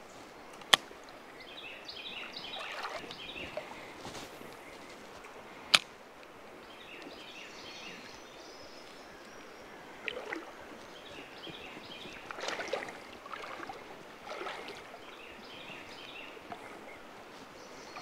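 Rocky small river running, with scattered brief sloshing and knocking sounds. Two sharp clicks, about a second in and near six seconds, are the loudest sounds.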